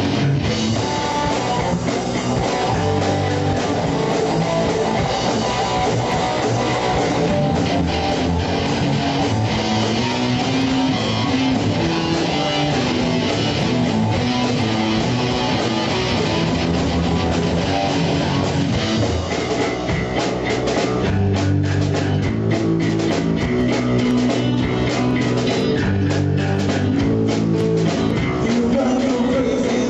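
Rock band playing a guitar-led instrumental passage on electric guitar, bass guitar and drum kit. The drums come through more strongly from about two-thirds of the way in.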